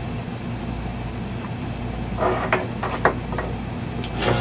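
Hydraulic power unit's pump motor running steadily while it drives a freshly rebuilt hydraulic bead breaker, bleeding air from the cylinder by running it out. From about halfway through there are a few sharp metallic knocks, and a louder rush of noise begins near the end.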